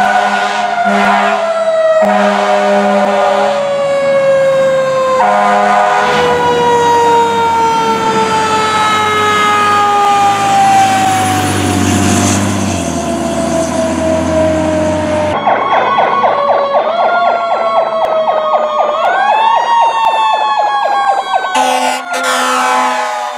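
Fire truck responding under siren: a siren winds down in one long, slowly falling wail while a horn blasts several times early on, with the truck's engine rumbling underneath. About fifteen seconds in, a fast pulsing yelp takes over, broken by two rising wails.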